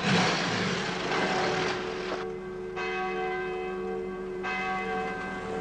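A church bell ringing: a low hum and several higher tones hang on steadily, one of them slowly pulsing. A rush of noise fills the first two seconds.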